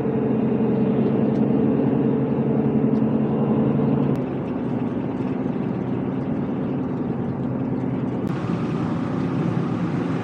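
Campervan driving, heard from inside the cab: a steady engine hum over tyre and road noise. The sound changes abruptly about four seconds in, and again near the end, where it turns hissier.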